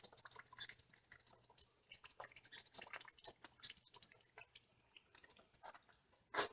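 Faint, irregular ticking of sleet and rain drops landing, with one louder tick near the end.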